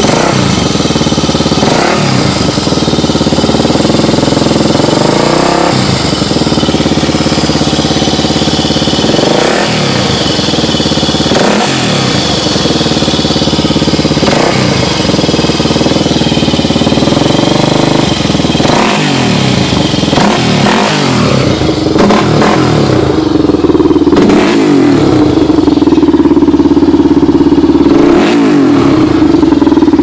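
Honda ATC 350X's single-cylinder four-stroke engine running, revved up and down repeatedly, then held at a steady higher speed for the last third. The owner presents this engine noise as timing chain noise.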